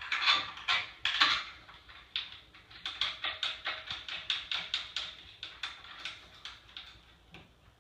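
Hex (Allen) key turning a bolt into the bed's metal support bracket: sharp metallic clicks, a few loud ones at first, then a quicker, even series of about four a second that stops shortly before the end.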